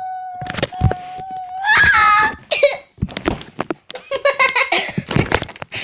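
Young girls' voices without words: a long held note that rises into a high squeal about two seconds in, then bursts of laughter and shrieks mixed with sharp knocks close to the microphone.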